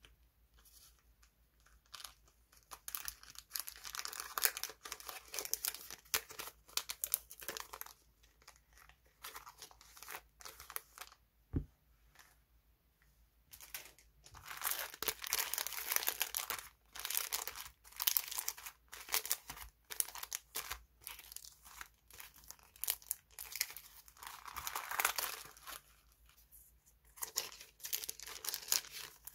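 Clear plastic packaging and paper stickers crinkling and rustling as they are handled and unwrapped, in stretches of a few seconds with short pauses and light clicks between.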